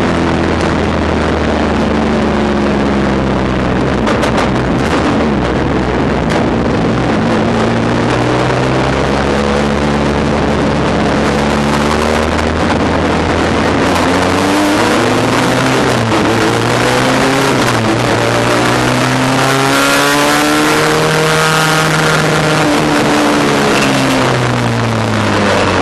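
Race car engine heard from inside the cockpit at racing speed, loud throughout. Its pitch climbs under acceleration and drops back several times, with a long climb past the middle and a fall near the end.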